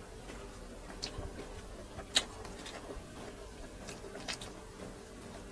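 Quiet chewing and eating of grilled chicken by hand, with a few short, sharp mouth smacks and clicks, the sharpest about two seconds in.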